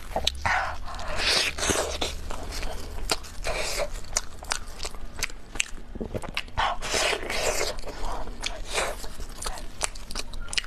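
A person chewing a mouthful of durian pizza close to the microphone: a run of short clicks and moist mouth sounds, with the soft crust and filling worked between the teeth.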